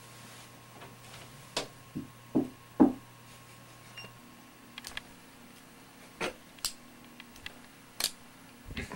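A few irregular clicks and knocks, one at a time, over a faint steady hum that shifts to a higher pitch about four seconds in.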